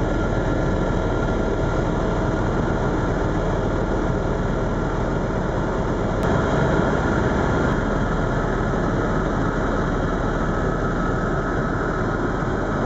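Eurocopter EC130 (Ecostar) helicopter in flight heard from inside the cabin: a steady drone of turbine and rotor with a few faint steady tones above it.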